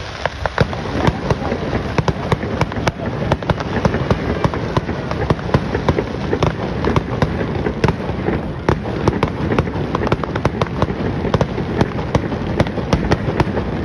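Aerial fireworks bursting in quick succession: a dense, irregular run of sharp bangs and pops over a continuous crackling hiss.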